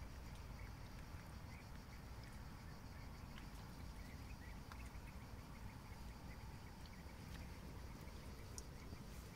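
Faint outdoor ambience at a fish pond: a low steady rumble with scattered soft clicks and a few faint short chirps.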